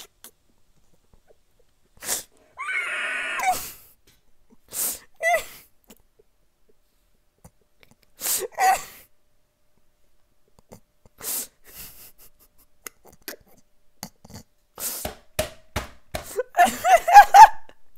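A person's gasping, wheezing laughter in short fits with quiet gaps between, the loudest fit near the end. A few sharp clicks fall between the fits.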